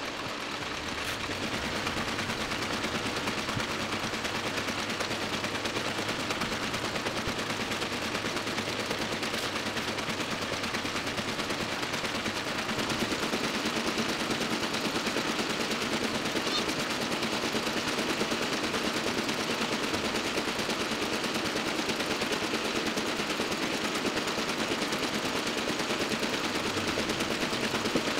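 Toko 810 small offset printing press running, a fast steady mechanical clatter of its rollers and sheet feed as it prints; it gets a little louder about twelve seconds in.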